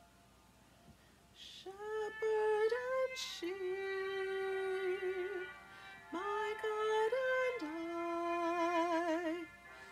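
A woman singing a slow worship song, holding long notes with vibrato, over faint instrumental accompaniment. The voice comes in about a second and a half in.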